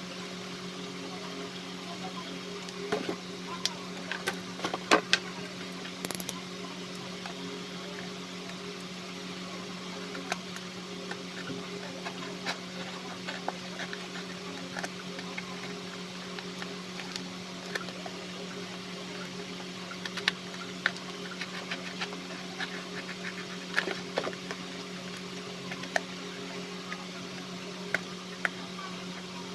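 A utility knife cutting into a cardboard box, heard as scattered short clicks and scrapes as the blade scores the card and the box is handled, over a steady low motor hum such as an electric fan.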